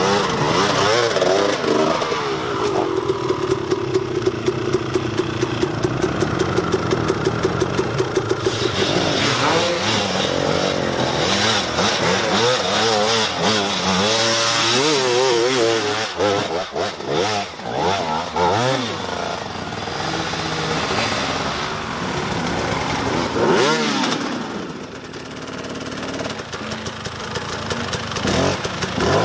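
Several enduro dirt bike engines revving at different pitches, the revs rising and falling unevenly as the bikes labour up a steep, muddy climb. One engine holds a steadier note for a few seconds near the start before the others take over.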